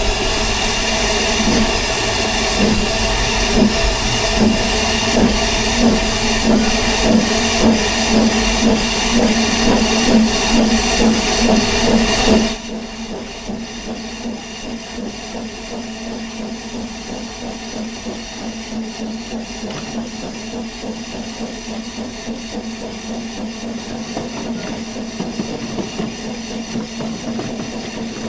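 Narrow-gauge steam locomotive working, its exhaust beating in an even rhythm over a steady hiss of steam. About twelve seconds in, the sound drops abruptly to a quieter, steadier running with the hiss still there.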